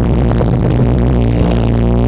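Electronic dance music played loud through a large sound system of ten subwoofers during a sound check, with a heavy, steady bass.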